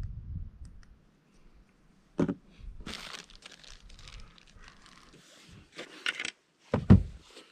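Crinkling and rustling of something being handled, with a short knock about two seconds in and a louder knock near the end.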